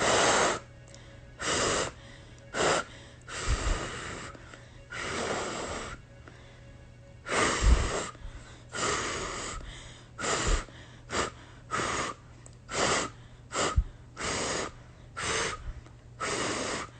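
A woman breathing hard in a run of about fifteen forceful, noisy breaths at irregular intervals, a few of them popping on the microphone, as she feels lightheaded.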